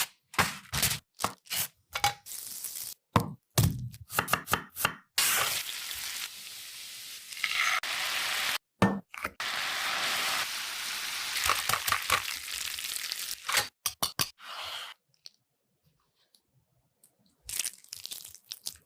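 Quick knife chops on a board, then a long steady sizzle of food frying in hot oil from about five seconds in; a few more knocks near the end.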